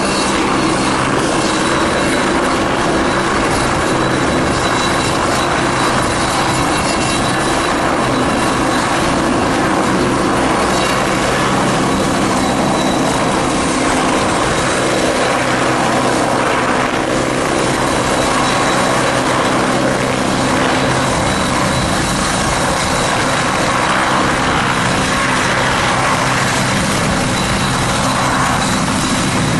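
Westland Wasp helicopter hovering low and coming in to land, its Nimbus turboshaft engine and rotors running steadily, with a thin high turbine whine over the rotor noise.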